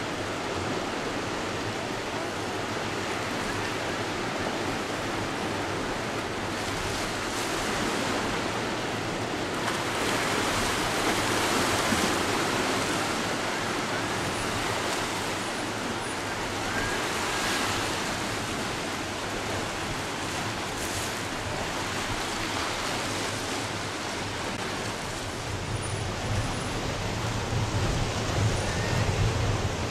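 Boat under way: a steady rush of water and wind noise, with a low rumble that grows louder near the end.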